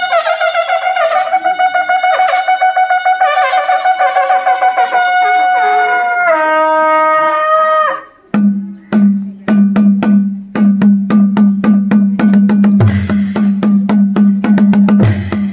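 Panche baja band of Nepal: narsingha, long curved horns, sound a single long held blast that drops a step in pitch about six seconds in and cuts off about two seconds later. Then drums take over: a barrel-shaped dholaki and small tyamko kettle drums beaten with sticks, in a fast, even rhythm.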